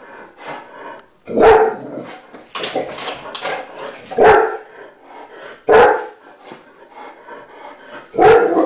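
German Shepherd barking at a cat outside the window: four loud barks, with quieter sounds from the dog between them.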